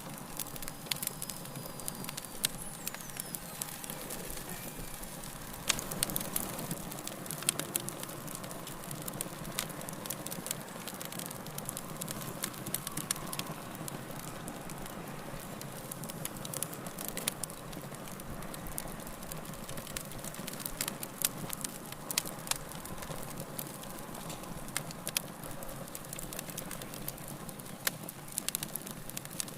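Wood fire burning in a fireplace: a steady soft hiss with frequent, irregular sharp crackles and pops.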